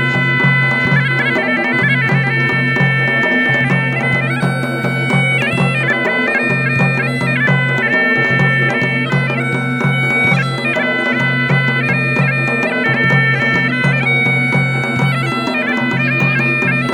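Bagpipe music: a melody played over a steady drone, with a drum keeping a regular beat.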